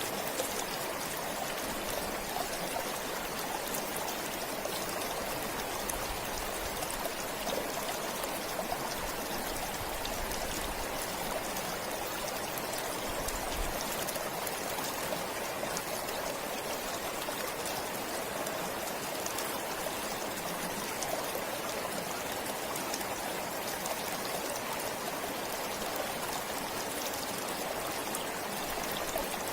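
Forest stream flowing steadily over rocks, a continuous even rush of water with small trickling and splashing details.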